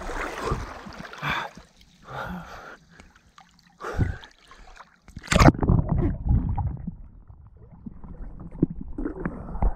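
Seawater splashing and sloshing around a camera held at the surface by a swimmer, uneven throughout, with one sharp loud splash a little over five seconds in.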